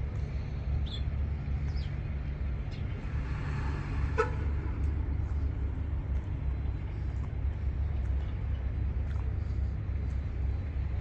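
Combine harvester engine running steadily with a low, even rumble; one short click about four seconds in.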